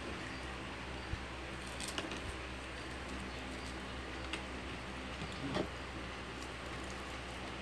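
Hands stuffing scallions and garlic into a raw whole chicken in a plastic colander: soft squishing of wet skin, with a few light knocks, the loudest about two seconds and five and a half seconds in, over a steady low hum.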